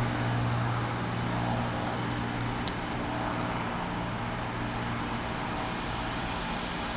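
Propeller and six-cylinder Continental IO-550 engine of a Cirrus SR22 droning steadily at climb power as the plane climbs away after takeoff, growing slightly fainter.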